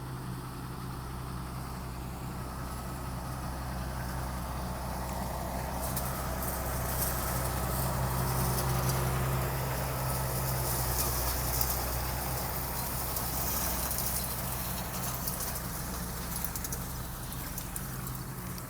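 Tractor engine running steadily while working hay machinery, growing louder toward the middle and easing off again, with a rattling clatter from the machinery while it is at its loudest.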